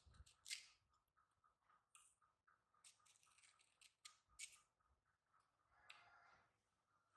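Faint, scattered short clicks and rustles, close to near silence.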